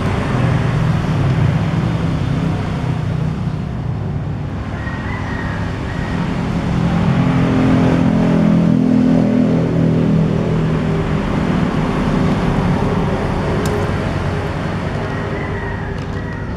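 A motor engine running steadily, its pitch rising and the sound swelling about halfway through before easing off.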